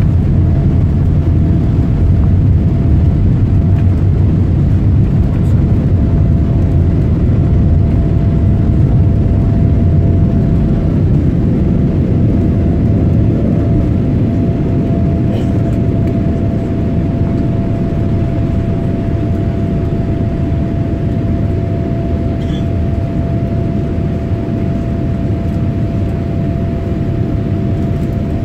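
Jet airliner takeoff heard from inside the cabin: a Boeing 787's engines at takeoff thrust with a steady whine over a deep rumble. The rumble eases a little around the middle as the aircraft leaves the runway and climbs.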